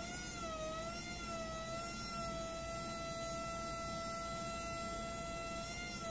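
Small drone motor and propeller on the end of a pivoting lever, running with a steady high-pitched whine. Its pitch wavers up and down for about the first second and a half as the feedback controller damps a push to the lever, then holds steady as the lever settles level.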